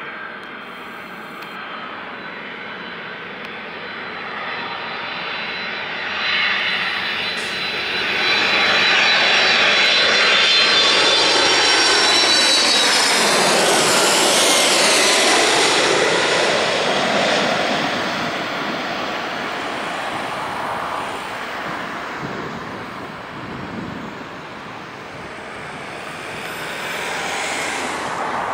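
Boeing 767-300 twin-engine jet airliner on final approach, its engines whining and growing loud as it passes low overhead about halfway through, the whine falling in pitch as it goes by, then fading as it heads down to the runway.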